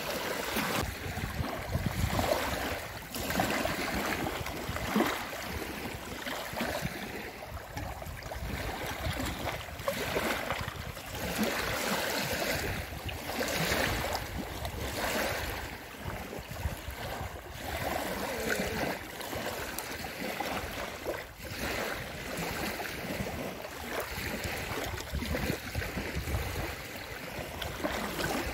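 Small lake waves lapping and splashing over a paved boat ramp, an irregular wash that swells every second or two.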